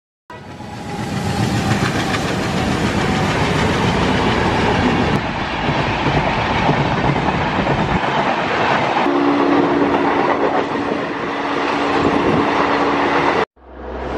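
Passenger trains passing at high speed, with a loud rush and clatter of wheels and coaches. From about nine seconds in a train horn is held on a steady two-note chord until the sound cuts off abruptly, and a new pass-by starts just after.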